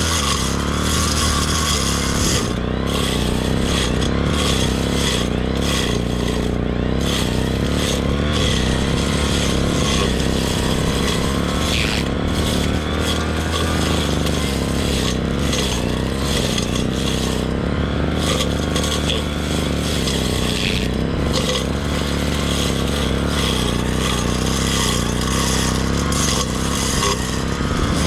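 Two-stroke brush cutter engine running steadily at working speed, its note wavering up and down a little as it cuts grass.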